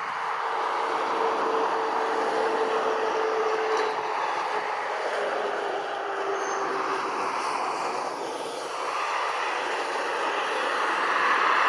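Airbus A320-214's CFM56-5B turbofan engines running at takeoff thrust as the airliner accelerates down the runway: a steady rush of jet noise with a thin steady hum through its first half, growing louder near the end.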